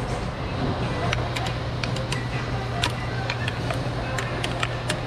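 Scattered sharp clicks and small taps as a rubber vacuum hose is wiggled and pried off the purge solenoid's fitting, over a steady low hum.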